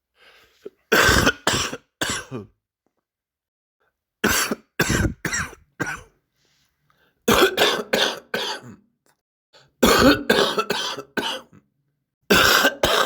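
A person coughing with a chest cold: wet, phlegmy coughs that come in about five fits of three to five coughs each, separated by short pauses.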